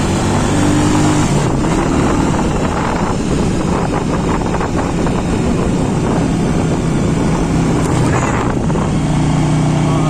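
Motorcycle engine running at road speed with wind rushing over the microphone; the engine hum is clearest near the start and again near the end.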